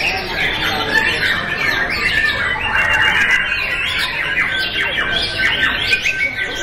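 A dense chorus of many caged songbirds singing at once, sharp calls and whistles overlapping without a break. In the second half one bird holds a long, steady high note for a couple of seconds.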